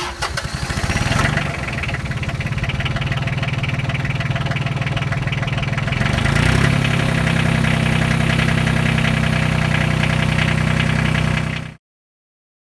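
John Deere 670 compact tractor's diesel engine just after starting, firing unevenly at first, then settling into a steady idle. About six seconds in it is throttled up and holds a higher steady speed, until the sound cuts off abruptly near the end.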